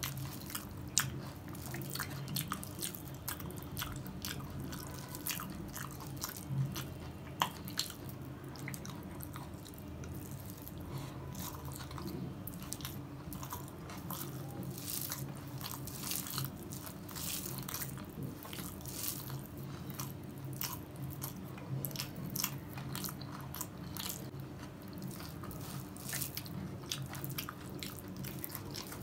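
Close-miked eating sounds: fingers mixing and squishing rice with mashed bhorta on a stainless steel plate, with many short wet clicks of chewing and biting scattered throughout. A steady low hum sits underneath.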